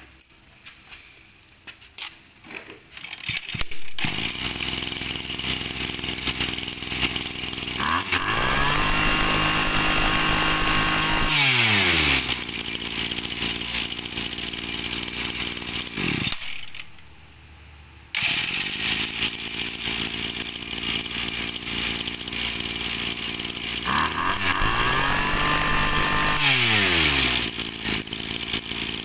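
Small 20 cc two-stroke brush cutter engine with an electric starter. It starts, runs, and its pitch rises and falls as the throttle is opened and released. It is switched off about 16 seconds in, fires again about two seconds later, and is throttled up and down once more.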